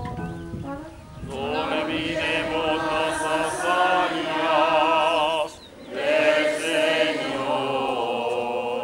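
Liturgical singing: voices holding long, drawn-out notes with vibrato, in two phrases with a brief break about halfway through.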